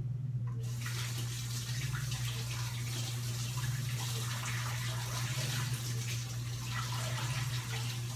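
Kitchen faucet turned on about half a second in and running steadily, over a steady low hum.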